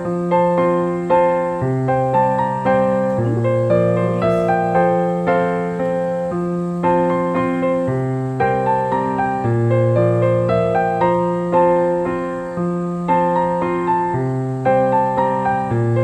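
Background piano music: notes struck in a steady flowing pattern over held low notes.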